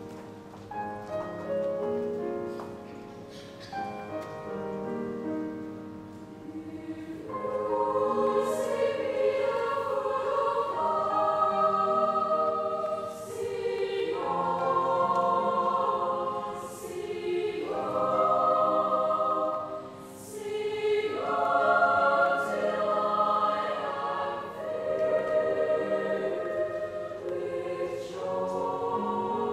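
Choral music: a choir singing long held chords, louder and fuller from about seven seconds in, with short breaks between phrases.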